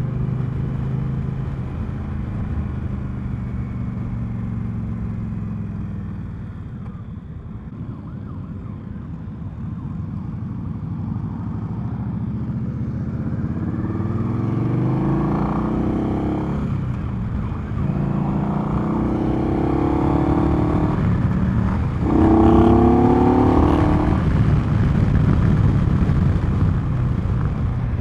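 Indian Scout's liquid-cooled V-twin engine running under way, easing off for a moment, then pulling hard: from about halfway through, the engine note rises three times, each rise cut short by a gear change.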